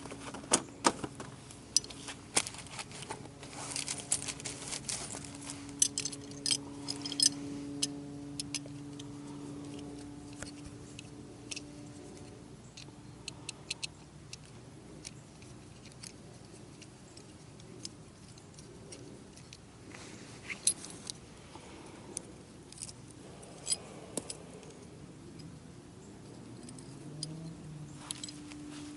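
Light metal clicks and scrapes of a screwdriver picking grass out of a motorcycle seat latch, in scattered bursts. A steady low hum runs under the first half.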